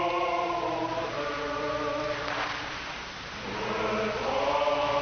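Choir singing long held chords as background music. It thins out about three seconds in, then swells again.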